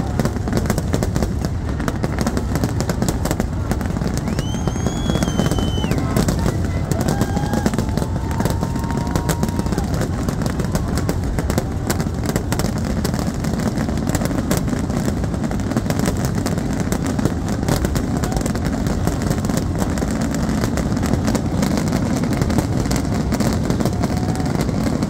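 Aerial fireworks finale barrage: shell bursts fired so densely that they merge into a continuous rumble packed with rapid cracks, without a break.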